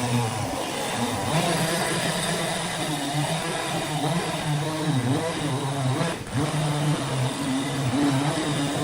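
A machine motor running continuously, its pitch wavering up and down as the load changes.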